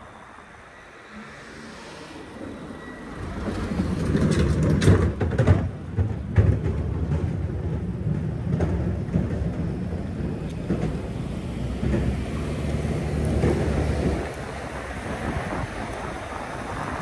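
Riding noise from a fat-tyre e-bike at speed: a low rumble of wind on the microphone and tyres on pavement that builds about three seconds in, with a few short knocks, and eases to a lighter steady rush near the end.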